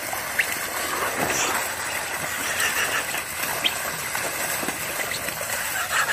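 Water gushing and splashing steadily out over the pushed-down wall of an inflatable pool onto grass.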